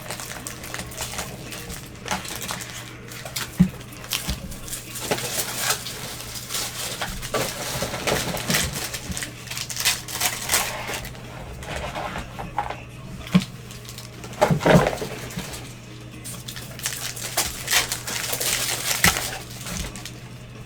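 Football trading cards and their packaging being handled on a table: an irregular run of clicks, taps and rustles, with a steady low hum underneath.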